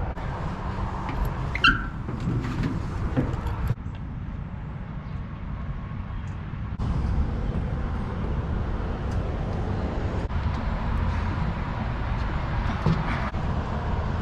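Car road noise: a steady low rumble of a vehicle on the move, with a few short clicks and a brief high chirp a second and a half in.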